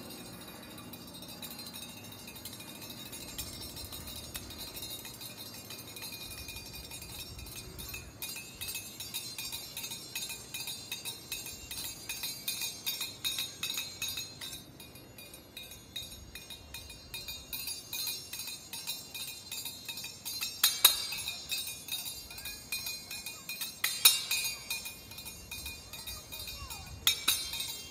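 Small brass hand cymbals ringing and being struck together. The strokes get quicker and denser about a third of the way in, with a few loud clashes in the last third.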